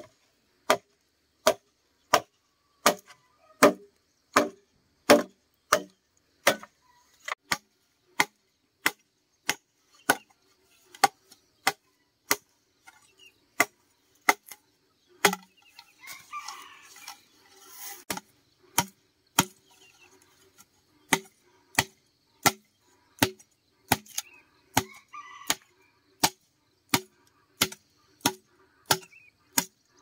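Machete chopping into a green bamboo pole, sharp woody strikes at a steady pace of about three every two seconds, with a short break in the rhythm about halfway through.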